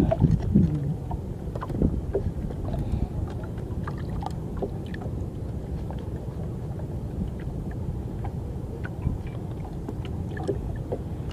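Water and wind around a small wooden canoe: a steady low rumble of wind on the microphone and water against the hull, with scattered light knocks and ticks.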